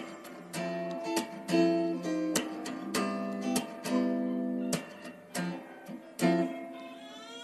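Background music: acoustic guitar strummed and plucked in a gentle, even rhythm.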